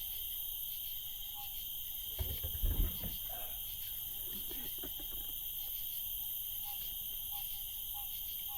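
Night insect chorus of crickets: a steady, high, shrill buzzing with a regular chirp about twice a second. A few low thumps come about two to three seconds in.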